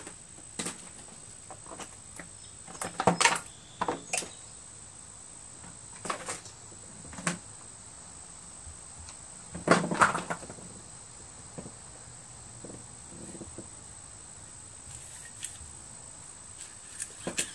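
Scattered knocks and clinks of hand tools and metal engine parts being handled as a Lawn-Boy mower's Kohler engine is taken apart to reach the recoil starter; the loudest come as quick clusters about 3 seconds and 10 seconds in. A steady high-pitched tone sits underneath.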